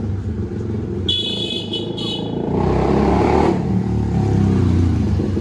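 Honda CBR250R's single-cylinder engine running loud through a full open exhaust with no baffle, a fast low pulsing that gets louder from about halfway through as it is revved. A brief high whine sounds about a second in.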